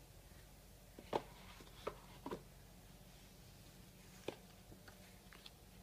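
A few soft clicks and taps of an album's cardboard box and photobook being handled, the sharpest about a second in and just past four seconds, over a faint steady hum.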